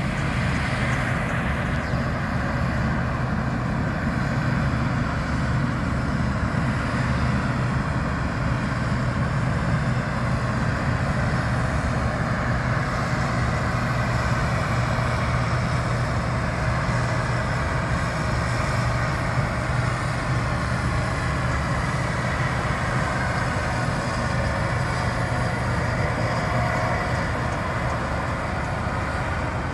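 International combine harvester running steadily under load while harvesting wheat: a continuous, even drone of engine and threshing machinery with no pauses or changes.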